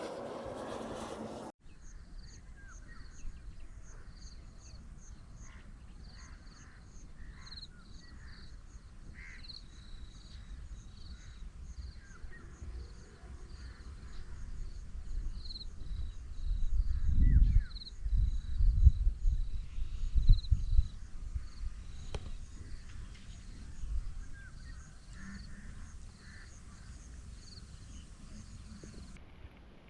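Countryside ambience: birds calling over a steady, rhythmic high-pitched chirping, with wind gusting on the microphone about halfway through. The first second and a half holds a different, dense rushing noise that cuts off abruptly.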